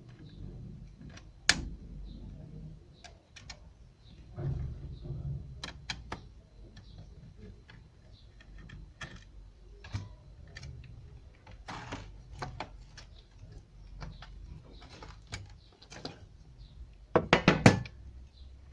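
Scattered clicks, taps and knocks of a satellite receiver and its metal-and-plastic case being handled, with a quick run of louder clicks near the end.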